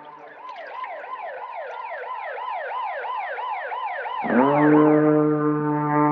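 A warbling siren-like tone that slides down in pitch over and over, about three times a second. Just over four seconds in, a deep ship's horn swells up and holds on one steady note.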